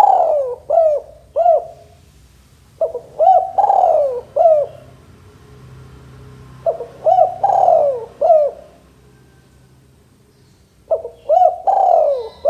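Male spotted dove cooing: one phrase trails off at the start, then three more follow about every four seconds. Each phrase is a few short coos around one longer, falling coo.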